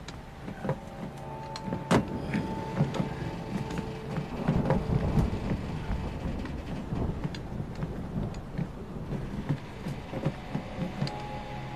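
Film sound effects of men boarding a steel ship: scattered knocks, clanks and footfalls over a low rumbling ambience, with a steady droning tone held underneath.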